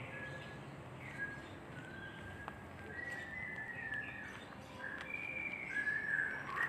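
Birds chirping: a string of short, clear whistled notes at varying pitches over a low outdoor hiss.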